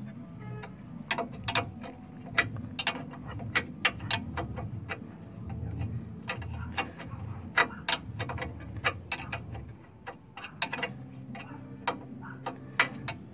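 Metal wrench clicking on the nut of a pickup's tie-rod end as the nut is loosened: sharp, irregular metal clicks, about two or three a second.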